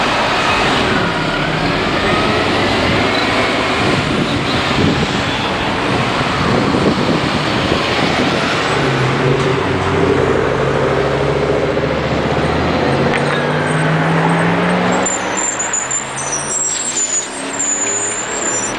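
City buses and traffic moving through an intersection, their engines running over road noise. From about nine seconds in, a bus engine pulls away with a steadily rising pitch, and near the end thin high squealing tones come in.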